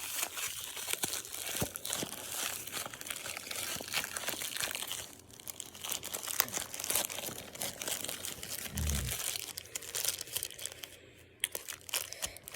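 Plastic packaging bag crinkling and tearing as it is pulled open by hand, in irregular crackly bursts, with a dull low bump about nine seconds in.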